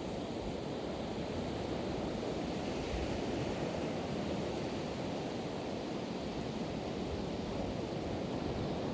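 Pacific Ocean surf washing on the beach, a steady rushing of waves, with some wind noise on the microphone.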